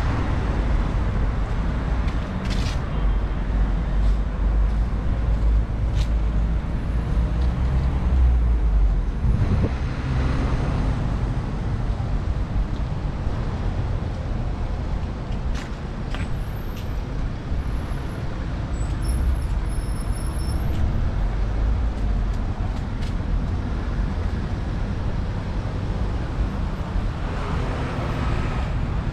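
Steady rumble of city road traffic passing close by, swelling as vehicles go past about ten seconds in and again near the end.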